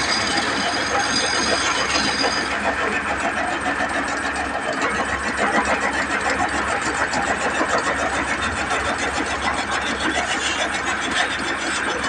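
Wood lathe running with a wooden blank spinning on it. For the first two or three seconds a turning tool cuts into the wood, adding a high steady whine over the machine noise. After that the lathe runs on steadily.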